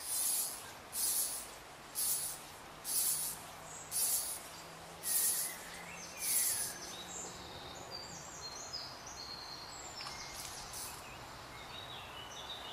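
Outdoor wildlife calls: a run of seven short, very high hissing buzzes about a second apart, then a few high chirps like birdsong, over a steady background hiss.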